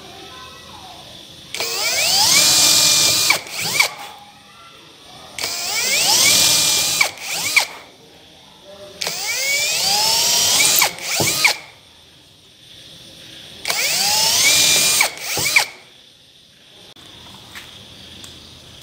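Cordless drill boring holes into the round wooden top of a lantern. It makes four runs of about two seconds each, and each run spins up with a rising whine, holds steady, then stops.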